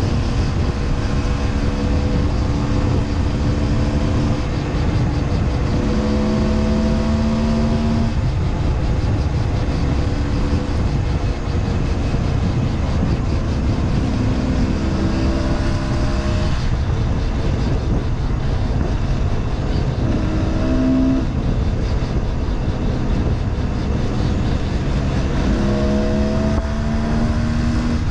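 Husqvarna WRE 125 two-stroke single-cylinder engine under way, its note climbing in pitch several times as it pulls, over heavy wind noise on the microphone.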